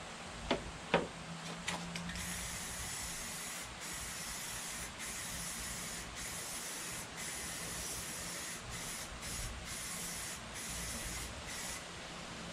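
Aerosol spray-paint can hissing in a run of sprays with short breaks every second or so, as a part is spray-painted. Two sharp knocks about half a second apart come just before the spraying starts.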